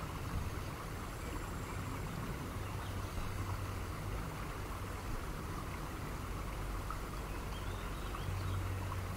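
Steady hiss with a low hum underneath and no music.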